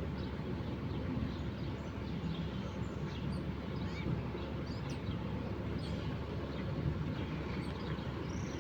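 Wild birds chirping in short, scattered calls over a steady low rumble.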